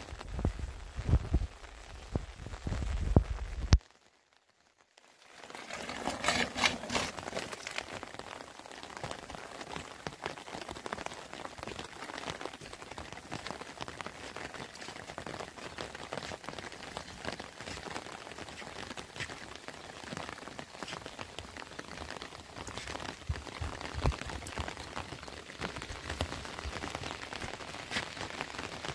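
Steady rain falling, a dense hiss of many small drops. For the first four seconds there is a low rumble with a few knocks instead; then the sound drops out briefly before the rain comes in.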